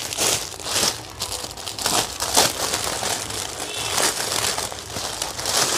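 Plastic saree packaging crinkling and rustling in irregular bursts as a saree is pulled out of its packet and unfolded by hand.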